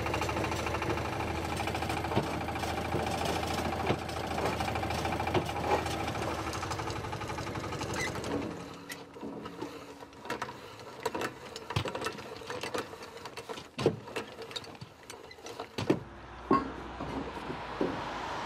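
A manual chain hoist and a steel rail being handled: a fast, steady mechanical rattle for about eight seconds, then scattered sharp metallic clinks and knocks as the rail is set against the fishplate joint.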